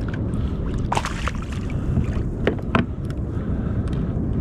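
Wind buffeting the microphone over water lapping against a kayak hull, a steady low rush. A few short sharp clicks come about one, two and a half and nearly three seconds in.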